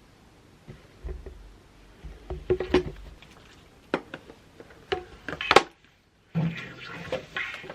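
Irregular taps, knocks and clinks of objects being handled and set down, with a short clattering stretch near the end. The sound cuts out completely for about half a second just after the middle.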